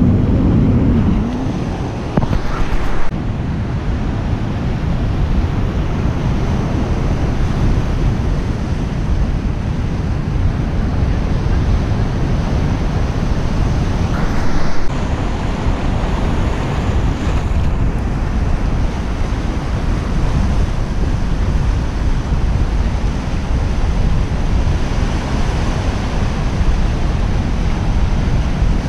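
Ocean surf washing onto the beach in a steady rush, with wind on the microphone and two brief bumps, about three seconds in and near the middle.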